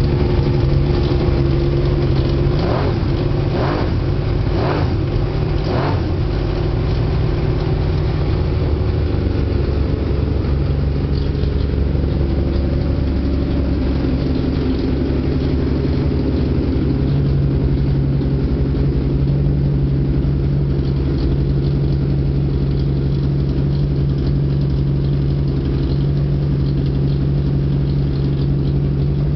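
Honda CBX air-cooled inline-six motorcycle engine idling steadily, with four short rises in the sound about a second apart, around three to six seconds in.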